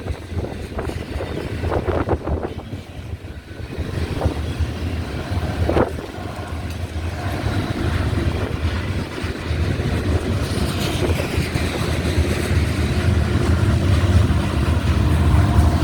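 Union Pacific freight train rolling past with a steady low rumble that grows louder toward the end, with wind buffeting the microphone.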